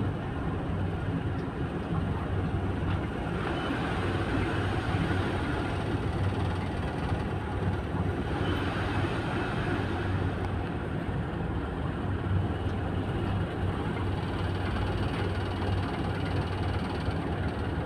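Tugboat's diesel engines running steadily, a low drone heard inside the wheelhouse, with a slight swell in the higher wash of noise twice.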